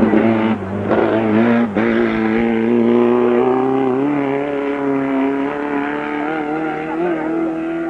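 Race car engine pulling hard. It cuts out briefly twice, about half a second and just under two seconds in, like quick gear changes, then holds a steady high note that fades slightly near the end.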